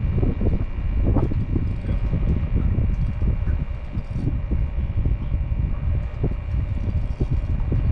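Wind buffeting the microphone: a loud, continuous low rumble that gusts up and down.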